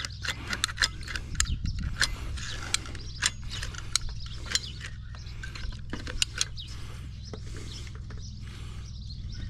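Irregular sharp clicks and clacks of hand tools and hardware being handled during the roof-rack fitting, about a dozen over the stretch, densest in the first half, over a steady low hum.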